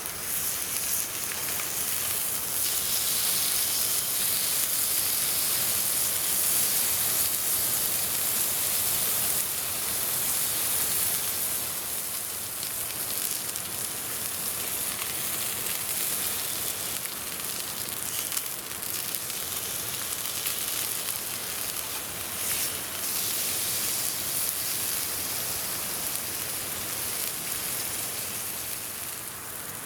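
Zabuton beef sizzling on a grill over a campfire: a steady high hiss, louder in the first dozen seconds and easing a little after, with a few faint crackles.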